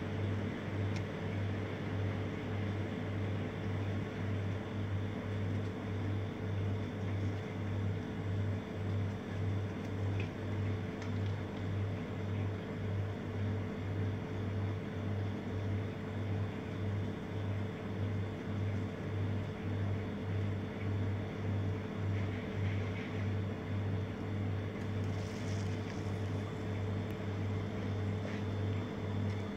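Steady low machine hum with a regular throb about one and a half times a second and a faint steady higher tone over it.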